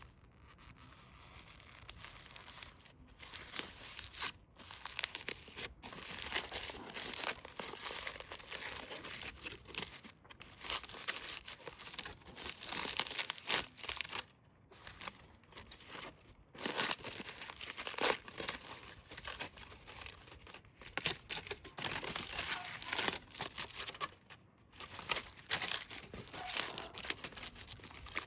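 Foil wrapping crinkling and tearing in irregular bursts with short pauses, as it is handled and pulled open around a roasted sweet potato.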